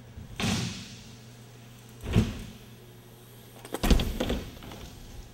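BMX bike riding on plywood ramps: a tyre swish about half a second in, a thud about two seconds in, and a louder cluster of knocks about four seconds in as the bike hits the wood, over a steady low hum.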